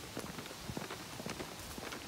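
Footsteps of people walking along a path: a quick, uneven run of steps, several a second, over a faint hiss.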